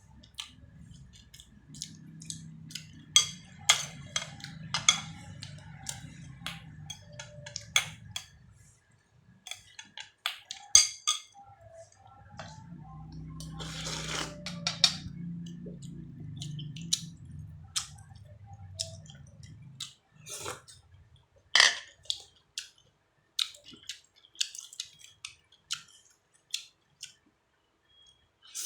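Eating sounds: chopsticks and spoon clicking and tapping against bowls and dishes, with chewing in between. A low hum runs under the first two-thirds in two long stretches.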